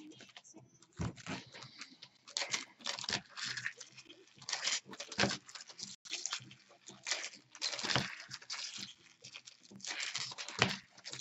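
Trading card pack wrapper being torn open and crinkled by hand, in irregular crackling bursts, with cards being handled.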